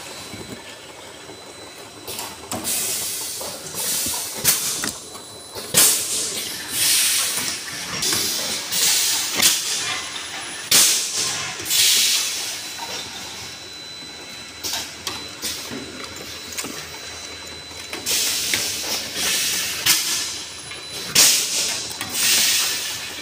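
An automatic edible-oil bottle filling and capping line running, with short hisses of compressed air venting from its pneumatic cylinders every second or two, over the clicks and clatter of the machine parts and the bottles on the conveyor.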